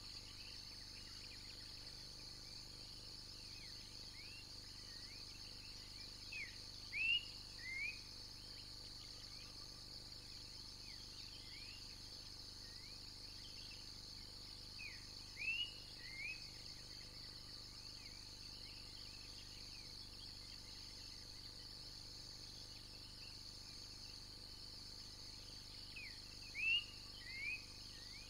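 Steady high-pitched insect chorus, with a bird calling three times, each call a short burst of two or three quick swooping whistled notes, about ten seconds apart.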